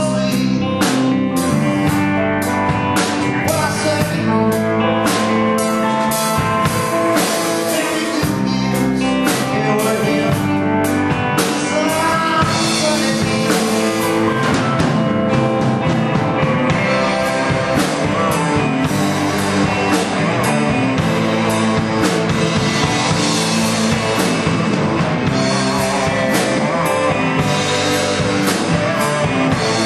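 Live rock band playing a song: electric guitars, bass guitar and drum kit with keyboard, at a steady, loud level.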